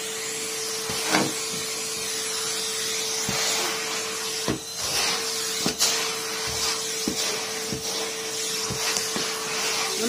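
Numatic Henry cylinder vacuum cleaner running steadily: a continuous motor hum over rushing air. Short knocks sound now and then through it.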